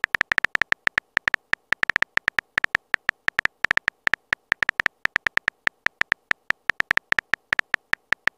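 Simulated phone-keyboard typing clicks from a texting-story animation: a fast, even run of sharp ticks, several a second, as a message is typed out.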